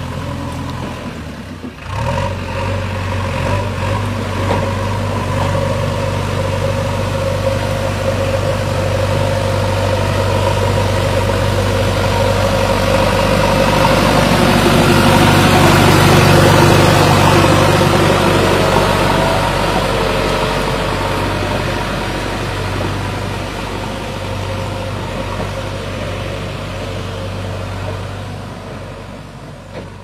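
JCB 3DX backhoe loader's diesel engine running steadily with a deep hum, briefly dropping out about two seconds in and growing louder toward the middle.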